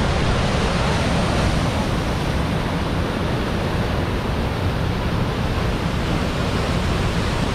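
Steady rush of the creek tumbling over rocky cascades below Apikuni Falls, an unbroken wash of white water.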